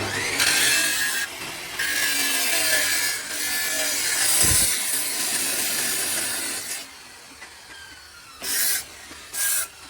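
A power tool cutting steel, running loud and hissy for about seven seconds, then cut in two short bursts near the end.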